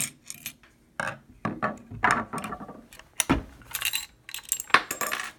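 Metal-on-metal clicks, scrapes and knocks of small parts being worked out of a Marlin 336 lever-action rifle's action by hand as a small clip is taken out. The loudest is a sharp knock a little over three seconds in.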